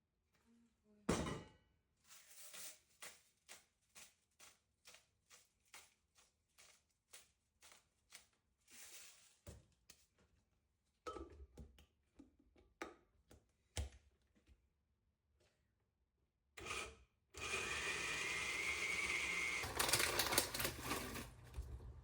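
A run of short scrapes and taps, about two a second, then a few knocks, as the hummus mixture is moved over; about seventeen seconds in, an electric blender starts and runs on the chickpea, tahini and garlic paste, getting louder about twenty seconds in.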